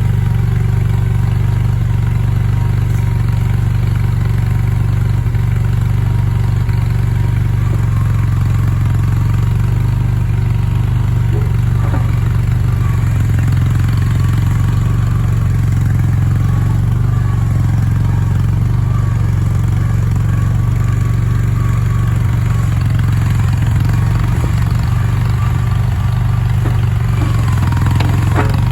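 Skid steer engine running steadily at a constant speed, with a few light clanks over it.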